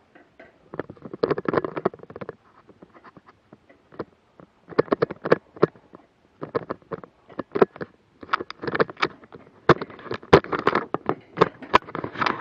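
Irregular bursts of scraping, rustling and sharp clicks from someone crawling over gritty concrete block and debris while handling an action camera close to the microphone.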